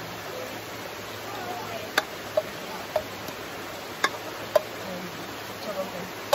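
Metal cookware clacking as cooked rice is scraped and tipped out of a rice-cooker pot into a wok: about half a dozen sharp knocks of the spoon and pot against the pot and wok rim, over a steady rushing background noise.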